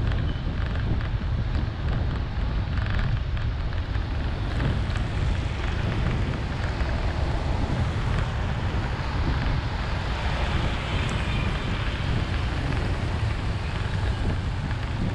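Steady road noise from driving through heavy rain on waterlogged streets, with a low wind rumble on the microphone over the hiss of rain and wet tyres.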